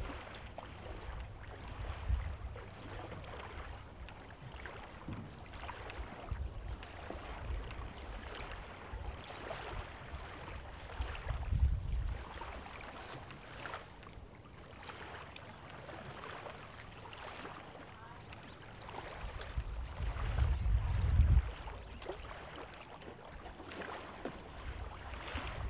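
Gusts of wind buffeting the microphone, strongest near the start, about halfway through and a little before the end, over a light wash of small waves at a sandy lake shore.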